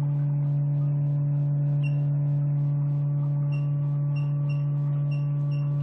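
Picosecond laser machine running with a steady low hum and a regular ticking about three times a second, while its touchscreen gives short high beeps as buttons are pressed, about seven of them from roughly two seconds in.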